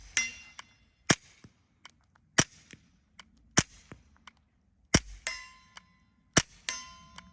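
Suppressed .22 LR SIG P322 pistol fired five times at an even pace, about one shot every 1.3 seconds, each a sharp crack. After several of the hits a steel target plate clangs and rings on, with the ringing most drawn-out on the last two hits.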